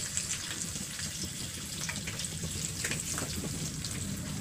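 Breaded shrimp frying in a pan of hot oil: a steady sizzle dotted with quick crackles and pops as more pieces are lowered in.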